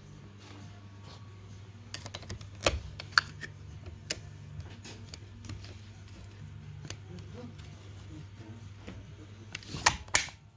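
Small metal clicks and light rattles as a strip of staples is loaded into the magazine of a Bostitch pneumatic stapler, with two sharper snaps near the end as the magazine is closed, over a low steady hum.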